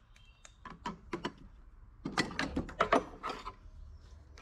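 Clicks, knocks and rattles of a work lamp being handled and set in place close to the microphone, with a busier run of clatter in the second half.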